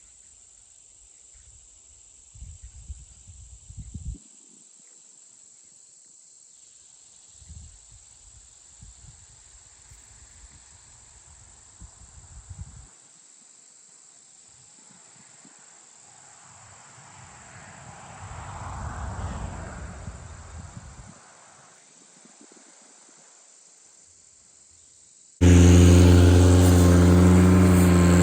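Faint steady insect chirring with low wind rumbles on the microphone, and a vehicle that swells and fades past in the middle. Near the end a Ventrac compact tractor's engine cuts in abruptly and runs loud and steady.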